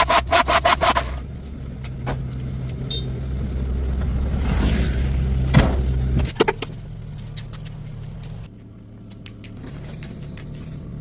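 Car engine running with a steady low rumble that grows gradually louder, then cuts off about six seconds in, leaving a fainter low hum. It is preceded by a rapid, regular pulsing sound with steady tones that stops about a second in.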